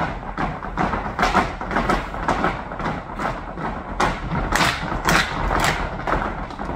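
Flamenco-style footwork: dancers' shoes stamping and tapping on a wooden stage in quick, irregular strikes, several a second, growing sharper and denser in the second half.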